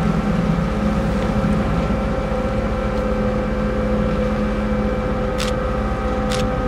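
Ferry's engines and propellers running steadily under way: a constant low drone with steady hum tones over the rumble of the churning wash. Two brief sharp high sounds about five and six seconds in.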